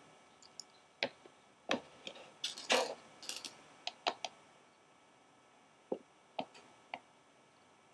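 About a dozen light, irregular clicks and taps, most of them in the first half: a utensil knocking against an insect-shaped gummy candy mold as its body cavities are filled with gelatin solution.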